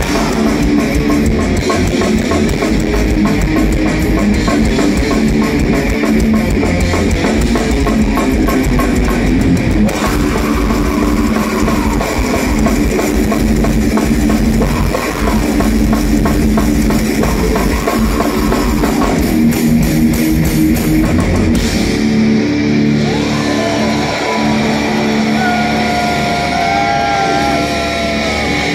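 Thrash metal band playing live: fast drums and distorted electric guitars. About 22 seconds in, the drums stop and a lead guitar line with slow pitch bends plays over held guitar chords.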